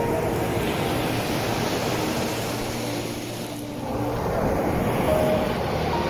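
Sea waves breaking and washing on the shore: a surge of surf builds in the first couple of seconds, eases, then a second wave rushes in after about four seconds.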